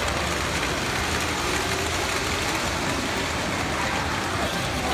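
Model trains running around a layout: a steady rumble of wheels on metal track, with an even low hum.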